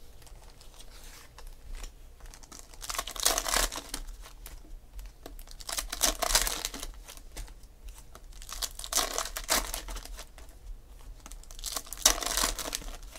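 Foil trading-card pack wrappers and cards being handled, crinkling in four short bursts about three seconds apart.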